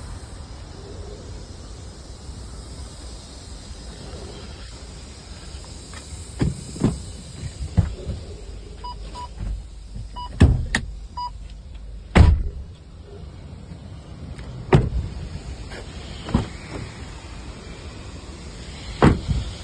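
A pickup truck's body being worked by hand: a series of sharp thumps and clicks, typical of doors and panels shutting and latching, over a low steady rumble. A few short beeps come about halfway through.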